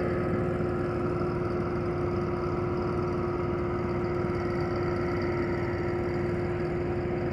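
Tractor engine idling steadily: an even hum with one constant tone held over it.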